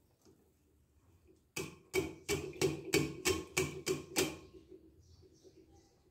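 Metal mesh strainer full of broken slate pencil pieces jolted repeatedly, giving about nine sharp, ringing metallic knocks, roughly three a second, as the pieces clatter against the mesh. The knocks start about a second and a half in and last a little over two seconds.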